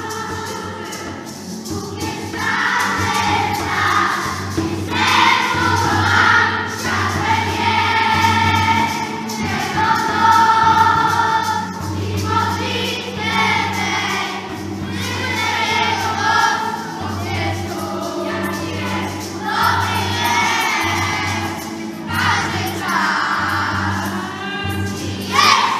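A group of children singing a song together along with a recorded musical accompaniment.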